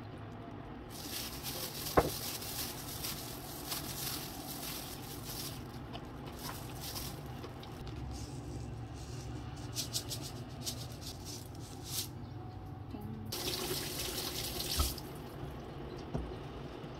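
Kitchen tap running into a sink in several spells, with knocks of dishes and a colander being handled and one sharp knock about two seconds in.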